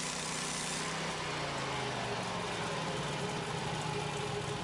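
Norwood LumberMate portable band sawmill running steadily: its engine hums with a few slowly sliding tones over a broad, even hiss.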